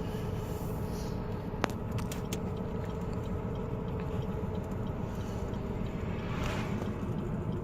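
Steady low rumble with a faint hum, like a running motor, with a single sharp click about a second and a half in.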